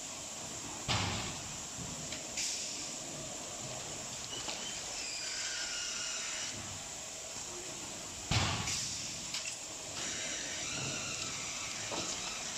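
Automatic plywood hot press line running in the factory: a steady machine hiss with two sharp clunks, about a second in and again a little after eight seconds, and faint high squeaks in between.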